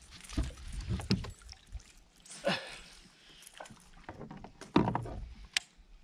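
Scattered knocks, clicks and low thumps from moving about in a fishing kayak, as gear and hands bump against the hull.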